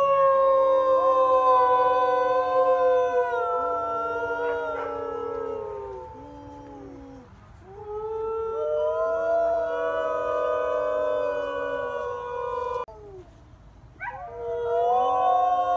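Wolves and wolfdogs howling in chorus: several long, overlapping howls at different pitches, held and slowly falling. They thin out about six seconds in, swell again, stop abruptly about thirteen seconds in, and start up again a second later.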